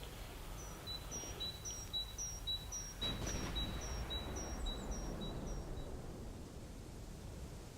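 A small songbird singing a rapid two-note phrase, a high note then a slightly lower one, repeated about ten times and stopping about six seconds in, over a low outdoor rumble.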